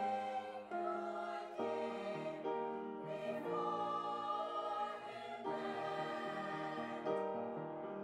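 Mixed high-school choir of male and female voices singing held chords that change about every second.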